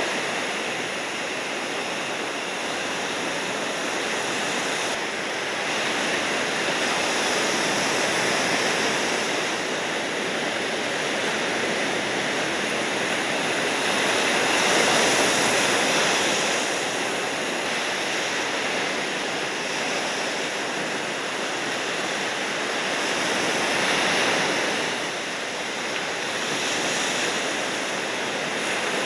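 Ocean surf: a steady rushing wash of breaking waves, swelling and easing every several seconds.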